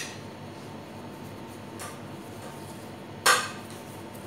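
Kitchenware clanking: a faint clink, then a single sharp, loud clank with a brief ring about three seconds in.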